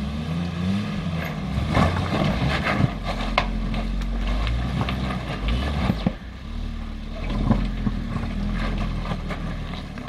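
Jeep Grand Cherokee ZJ's engine running under load and changing revs as it climbs a rock step, with sharp knocks at intervals and a brief dip in revs about six seconds in. An onlooker says it looked like the transmission was popping out of gear.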